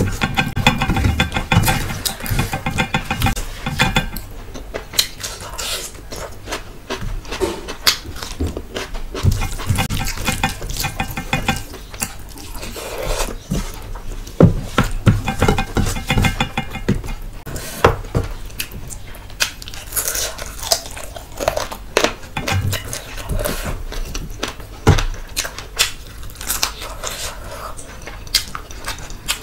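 Fingers mixing rice with curry gravy against a steel plate, giving many short clicks and scrapes, between mouthfuls chewed close to the microphone.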